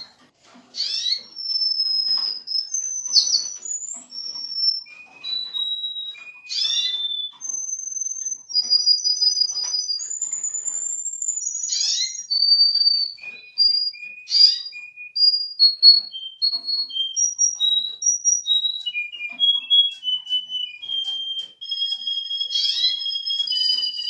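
Domestic canary singing a long, continuous song: clear whistled notes held at one pitch and then stepping to another, with trills and quick downward-sweeping calls every few seconds.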